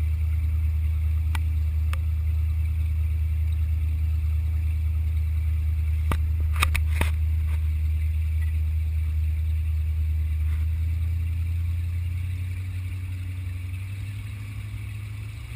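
Powerboat's engine running steadily under way, with a few sharp clicks about six to seven seconds in. The engine note drops and gets quieter over the last few seconds.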